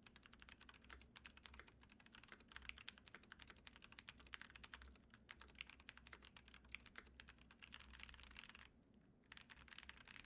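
Keychron C3 Pro mechanical keyboard with brown switches being typed on: a fast, continuous run of key clicks, with a short pause near the end.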